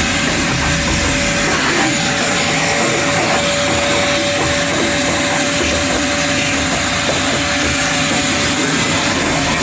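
Power tool, most likely an angle grinder, running steadily as it cuts rusted-out sheet steel from a Ford Granada's rear floor, with a steady whine through most of it.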